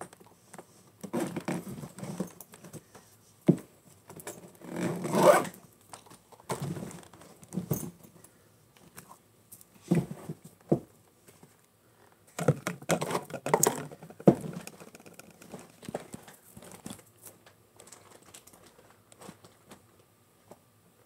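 Cloth rustling and being handled, with irregular bursts of scraping and a few sharp knocks close to the microphone.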